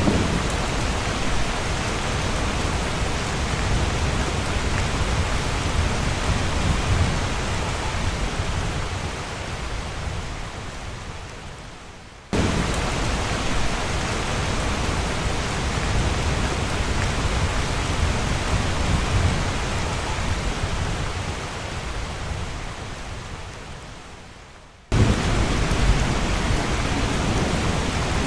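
Steady heavy rain with a low rumble underneath. The sound fades down and then cuts back in abruptly, about 12 seconds in and again near 25 seconds in.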